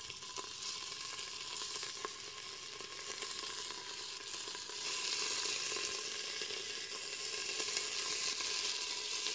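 Beef cubes sizzling as they brown in hot olive oil in a stainless steel pressure cooker. The sizzle is steady and gets louder about five seconds in, as more cubes go into the pan.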